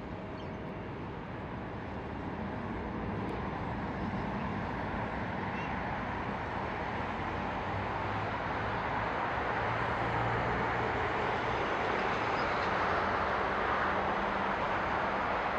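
Distant jet airliner engines at an airfield: a steady rushing hum that grows slowly louder.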